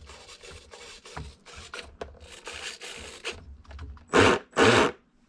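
Small RC steering servo whirring in short repeated bursts as it swings the boat's rudder back and forth, followed by two much louder bursts about a second before the end.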